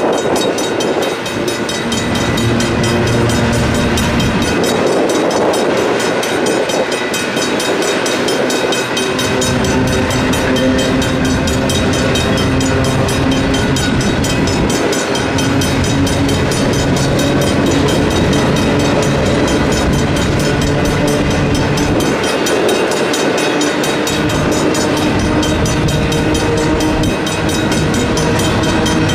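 Double-stack intermodal freight cars rolling past, the steel wheels rumbling and clattering on the rails. Over it the grade-crossing bells ring steadily and rapidly: a Griswold mechanical bell and a Safetran Type 1 electronic bell.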